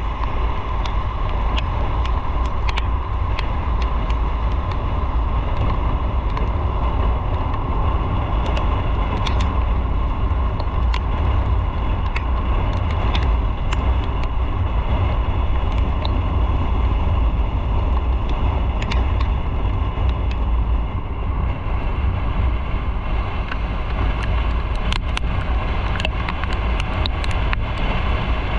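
Motorcycle riding along at a steady pace: engine and road noise under a heavy low wind rumble on the microphone, with scattered light ticks.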